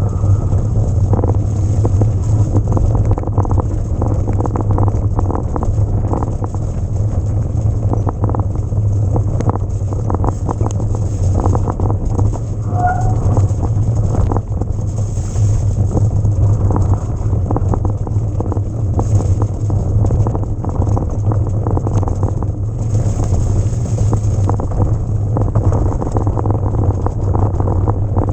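Wind buffeting the camera microphone in a steady low rumble while an electric mountain bike rattles and knocks over rough trail, with many small clatters throughout.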